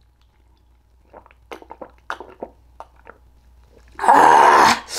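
Close-up mouth sounds of someone chewing moist strawberry cake: soft wet smacks and clicks. About four seconds in, a loud open-mouthed burp lasts under a second.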